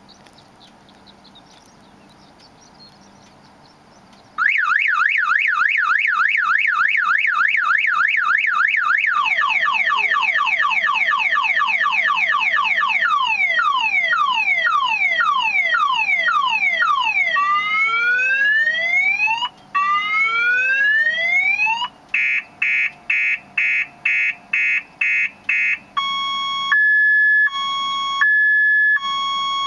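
Viper car alarm siren going off about four seconds in and cycling through its tones: a fast warble, falling chirps, rising whoops, rapid beeps, then a slow alternating high-low two-tone.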